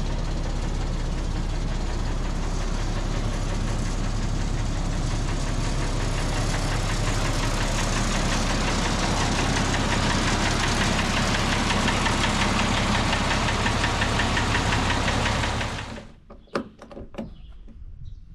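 An engine running steadily with a rattling clatter, stopping abruptly near the end; a few sharp clicks follow.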